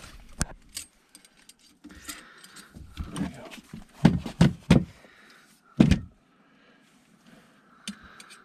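Handling noise: a string of sharp knocks and metallic rattles from tools being worked in the wall. The loudest knocks come in a cluster around four to six seconds in. No drill is running.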